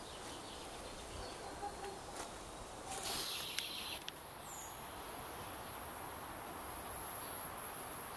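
Insects buzzing in a steady, very high-pitched drone that sets in about three seconds in, over faint outdoor ambience, with one short falling whistle near the middle.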